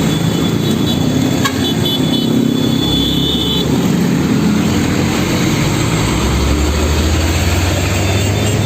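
Road traffic: steady engine rumble and road noise from heavy vehicles, with a brief high-pitched toot about a second and a half in, and a deeper engine drone growing louder near the end.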